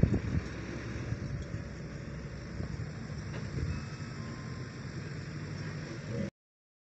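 Diesel engines of a Volvo excavator and a UD dump truck running steadily as the excavator loads soil, with wind on the microphone. The sound cuts out abruptly near the end.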